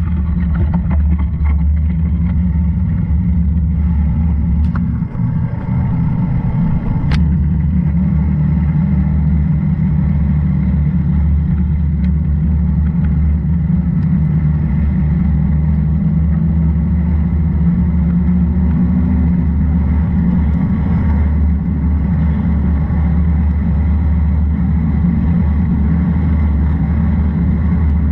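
Loud, steady low rumble of wind buffeting the microphone of a camera moving downhill, with road noise from a wet road surface.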